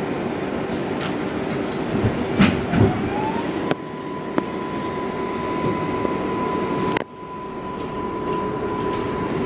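R142A subway train running on elevated track, heard from inside the car: a steady rumble of wheels on rail with a few sharp clacks. About three seconds in, a whine rises and then holds on one steady tone. The running noise drops suddenly about seven seconds in.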